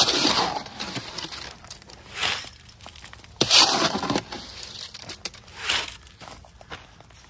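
A shovel scraping and scooping wet concrete in a wheelbarrow and dumping it into a post hole, in four gritty scrapes about a second and a half apart, the loudest at the start and about three and a half seconds in.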